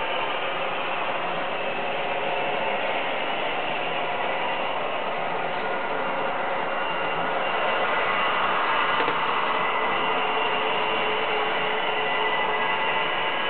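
HO scale model trains running on the layout's track: a steady mechanical whir of small motors and gears with a faint whine and the rattle of wheels on rail, a little louder from about two-thirds of the way through as a train comes close.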